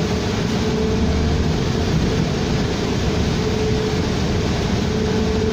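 Cabin noise of a 2007 New Flyer D40LFR diesel low-floor city bus under way: a steady low rumble from engine and road, with a steady whine above it.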